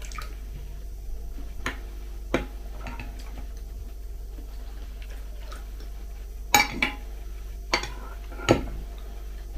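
A metal spoon clinking and scraping against a ceramic bowl of cereal and milk: a handful of separate clinks, the loudest coming in the second half.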